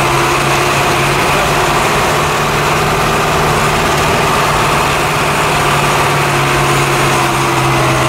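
Toyota Bandeirante's diesel engine running steadily under load in low-range four-wheel drive, heard from inside the cab while crawling up a dirt track.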